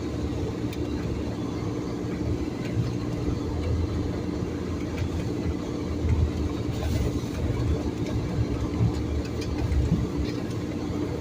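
Motor vehicle driving over a rutted, snow-covered dirt track: a steady engine hum and road rumble with a few faint knocks from the bumps.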